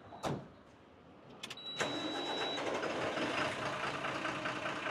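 Heavy diesel lorry engine starting: a few clicks, then it catches about a second and a half in and settles into a steady idling clatter. A short high beep sounds as it starts.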